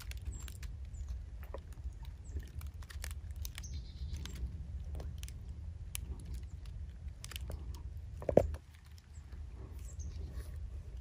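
Footsteps crunching and crackling through dry leaf litter, with one louder knock about eight seconds in.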